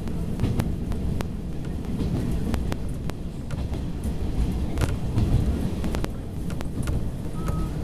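Inside a KiHa 40 diesel railcar under way: a steady low rumble from the engine and running gear, with repeated sharp clicks of the wheels on the track.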